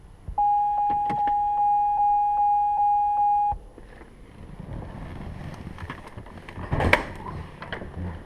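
The 2005 Corvette C6's electronic warning chime sounds as one steady tone for about three seconds and then cuts off. It is followed by quieter rustling and a few clicks and knocks.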